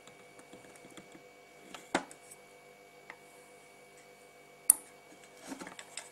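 Sharp clicks and taps of a soldering iron and a circuit board in its plastic housing while a capacitor is desoldered: one click about two seconds in, a louder sharp one near five seconds, then a short flurry of small clicks and scraping as the board is moved. A faint steady electrical hum runs underneath.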